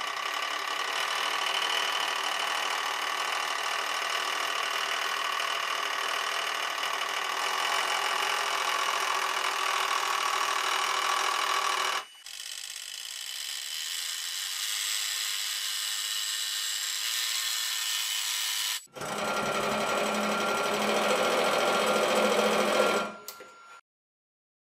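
Hydraulic press's pump motor running steadily as the ram crushes a metal pipe fitting under several tonnes of load. The sound changes abruptly about halfway through and again a little later, then cuts off shortly before the end.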